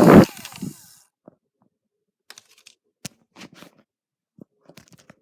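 A loud rush of noise cuts off just after the start, then faint scattered clicks and short knocks, like small plastic handling sounds. A faint steady hum comes in near the end.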